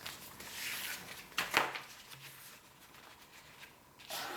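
A sheet of paper rustling as it is handled and folded, with a sharper crackle about one and a half seconds in.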